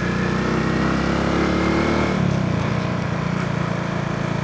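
Small motorcycle engine running under way, its note rising slightly and then dropping about two seconds in.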